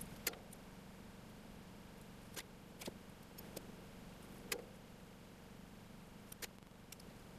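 A handful of light, separate clicks and taps as small metal connector pins and hand tools are handled on a metal plate, over a faint steady hum.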